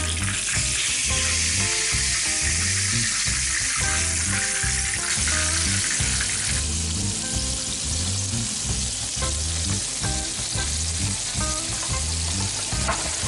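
Flour-coated pork neck slices frying in plenty of hot oil in a pan, giving a steady sizzle that grows softer about halfway through. Background music with a steady low beat plays underneath.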